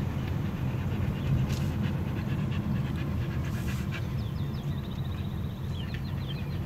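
A dog panting in a car, over the steady low rumble of the car driving on a paved road.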